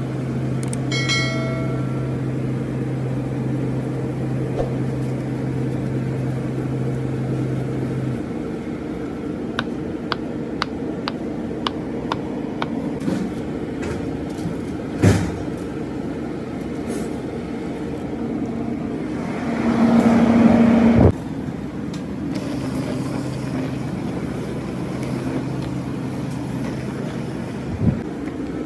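Steady hum of commercial kitchen equipment, with a low drone in it that cuts off about eight seconds in. A short electronic chime sounds about a second in, a run of light clicks follows around ten to thirteen seconds, and a louder rushing burst lasts about two seconds around twenty seconds in.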